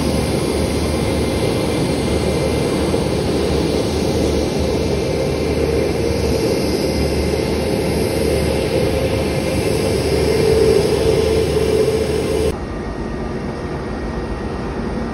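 Jet engines of an Airbus A320-family airliner running on the runway: a steady rushing noise with a held whine that grows louder about ten seconds in. A little before the end it drops suddenly to a quieter, steady engine noise.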